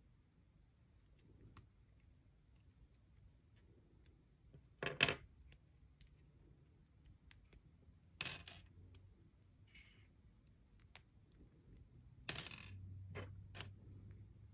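Small plastic Lego bricks being pried apart by hand and dropped onto a pile of loose pieces on a wooden table: scattered faint ticks with sharp clacks about five and eight seconds in, and a short cluster of clattering near the end.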